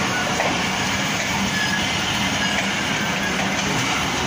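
Pakistan Railways passenger coaches rolling past along the platform as the express pulls in to the station, wheels running on the rails with a steady, even noise.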